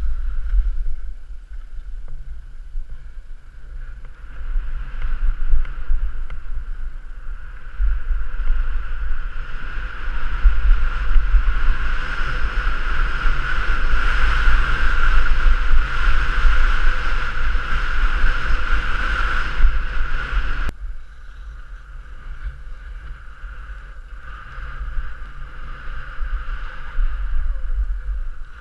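Small drone's propellers buzzing steadily, with wind rumbling on the microphone. The buzz grows louder about ten seconds in and drops back suddenly about 21 seconds in.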